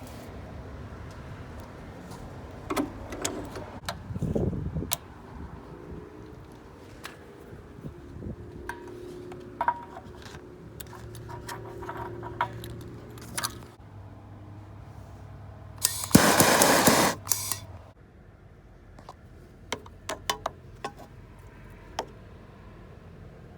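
Metal tools and fittings clicking, clinking and knocking during water heater installation work, with a loud hiss lasting about a second and a half past the middle.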